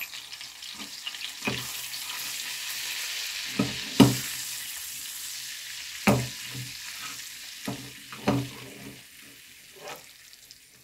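Dried mint sizzling in hot oil and melted butter in a small frying pan as it is stirred with a metal spoon, the spoon knocking against the pan several times. The sizzle fades toward the end.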